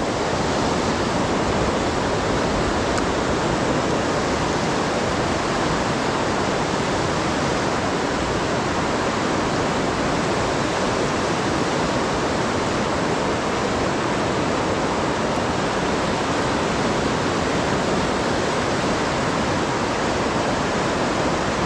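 Seti River rapids rushing steadily through a narrow rock gorge, a constant, even roar of white water.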